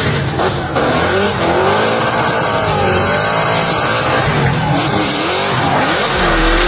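Drift cars sliding with engines revving up and down at high rpm and tyres screeching under wheelspin.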